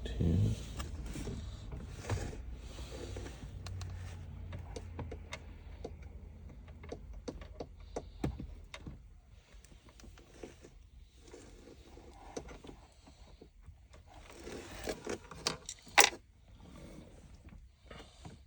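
Scraping and small clicks of a screwdriver and hands working screws into a car dashboard's trim panel, with one sharp click about sixteen seconds in.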